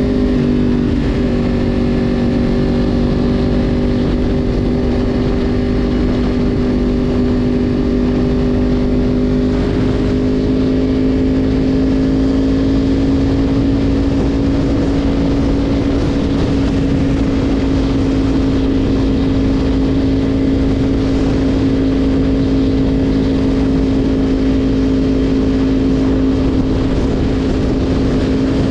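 Yamaha YZF-R1's inline-four engine running steadily under way at a held cruising speed, its pitch dipping slightly about a second in and then rising slowly from about ten seconds in.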